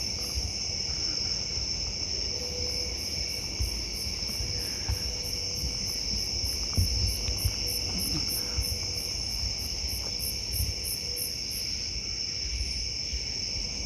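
Night insect chorus of crickets and other insects: a steady high trill with a faster pulsing chirp above it, about four pulses a second, pausing briefly about a second in. Low thumps and rustles sound underneath.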